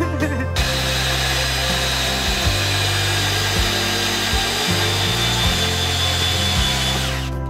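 Cordless drill spinning a hole saw, cutting up through the bus's wooden floor from underneath. It starts about half a second in and runs steadily until just before the end. Background music with a bass line plays underneath.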